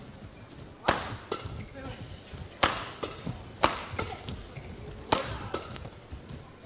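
Badminton rackets striking the shuttlecock in a doubles rally: sharp single hits, a few stronger than the rest, coming about every second.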